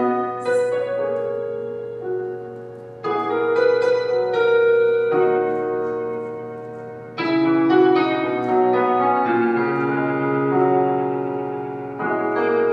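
Piano playing slow chords, a new chord struck about every four to five seconds, each ringing on and fading away.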